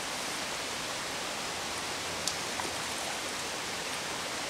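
Steady rushing hiss of a small stream's flowing water, with one sharp click about two seconds in.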